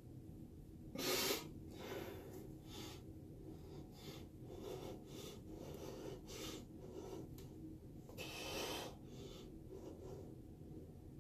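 A person's breaths and short puffs of air, faint and irregular, with a sharper, louder one about a second in and a longer one near the end.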